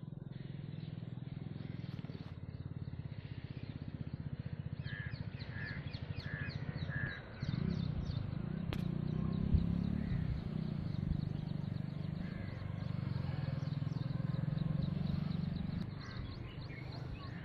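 A crow caws four times in quick succession, over a steady low rumble.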